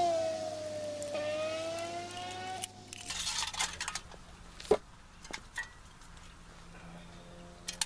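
A motor vehicle's engine drones for about three seconds, its pitch dipping slightly and then rising. Then come light metallic clicks and taps from the cut aluminium beer can being handled, with one sharper click near the middle.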